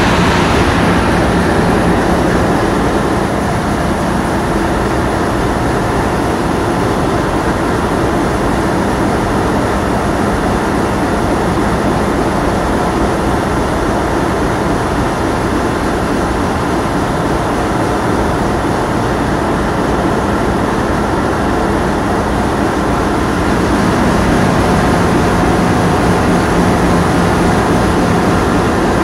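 Steady drone of the boat's engine under way, with a wash of water and wind noise. It eases a little a few seconds in and picks up again near the end.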